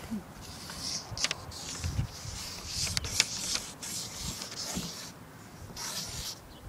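A name being written out in a series of short, scratchy hissing strokes, with a few sharp clicks between them.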